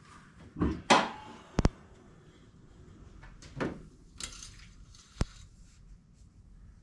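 Car hood being unlatched and lifted: a loud clunk about a second in, then sharp metallic clicks and knocks, with a rag rubbing over the engine bay in between.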